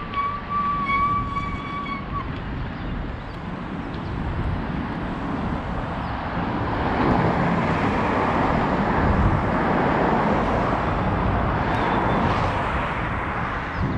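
Steady rushing wind and road noise of a moving bicycle, with a steady high whine that stops about two seconds in. The rushing swells and grows louder from about six seconds in.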